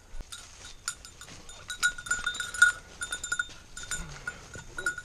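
A springer spaniel's bell jingling in quick, uneven bursts as the dog works through the cover, loudest about two to three seconds in, over rustling steps in grass and dead leaves.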